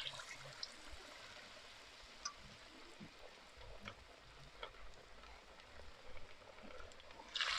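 Marinated fish frying in a pot of hot oil: a steady sizzling hiss with scattered small pops, loudest just as the fish goes in and settling within a couple of seconds.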